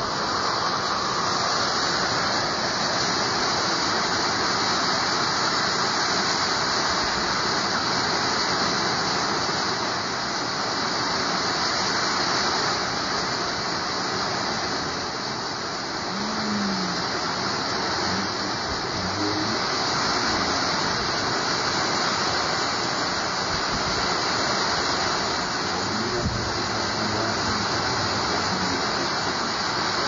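Heavy tropical rain with strong gusting wind: a steady, loud rush of rain and wind through the trees that swells and eases slightly.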